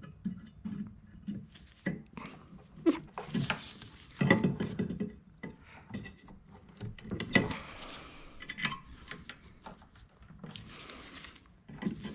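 Irregular plastic and metal clicks, taps and scraping as pliers grip and twist a halogen H7 headlight bulb, working its locking tab free from the headlight housing.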